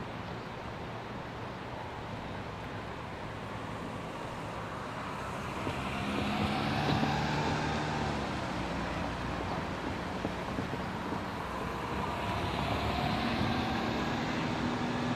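Road traffic: a motor vehicle passes, its engine and tyre noise swelling to a peak about seven seconds in and fading. A second vehicle approaches toward the end.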